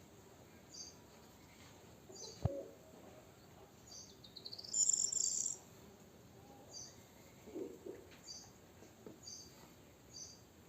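Muscovy ducklings peeping: short high peeps repeated roughly once a second, with a louder quick rising run of chirps about five seconds in. A single thump about two and a half seconds in.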